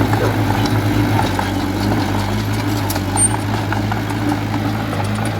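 A heavy construction machine's engine running steadily at an even, low pitch, with a few light knocks and a brief high squeak about three seconds in.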